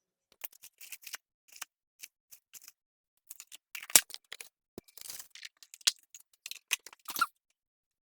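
Scattered clicks, taps and short scrapes of kitchen items being handled, with one sharper knock about four seconds in.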